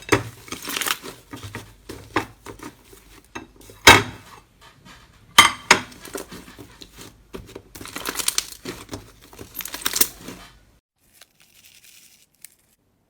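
Slime being squeezed and stretched by hand: irregular sticky crackling and popping, with two sharp loud pops about four and five and a half seconds in. It stops near the end, leaving only a few faint ticks.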